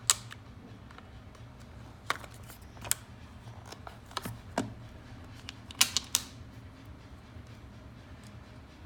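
Scattered sharp clicks and taps from handling a precision screwdriver kit with magnetic bits, about eight in all, three in quick succession a little past the middle.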